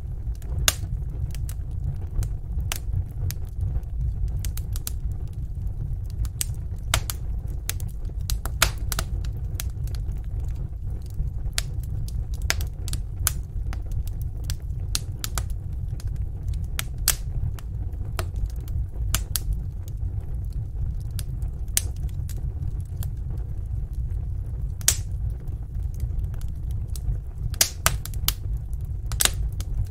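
Wood fire in a fireplace burning with a steady low rumble and irregular sharp crackles and pops, several clustered near the end.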